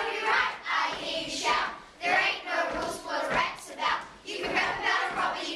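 A group of children's voices in unison, with hand clapping mixed in.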